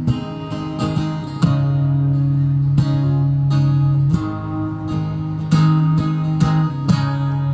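Instrumental accompaniment of a song: strummed guitar chords, changing every second or so, over a steady held low note, with no singing.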